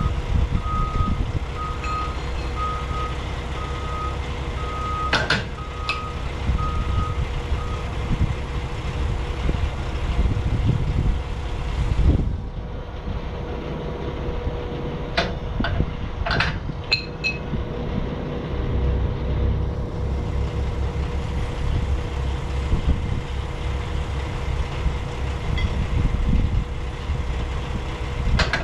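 A vehicle's backup alarm beeping at a steady pace, a little over one beep a second, then stopping about seven seconds in, over a steady engine hum and low rumble. A few sharp metallic clinks come through around the middle.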